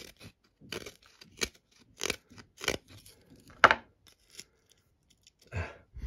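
Knife blade shaving thin curls off a wooden paint stir stick: a series of short scraping strokes, roughly one every half second to second, the loudest about three and a half seconds in.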